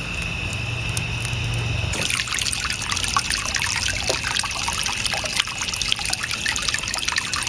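Water trickling and dripping, a dense irregular patter of small splashes that thickens about two seconds in as a low hum stops, over a steady high-pitched tone.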